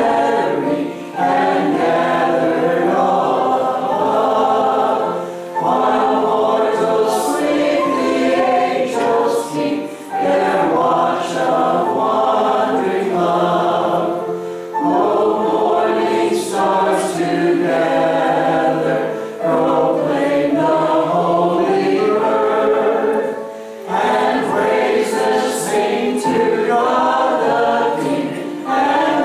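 A man and a woman singing a duet into handheld microphones, in sustained phrases a few seconds long with short breaths between them.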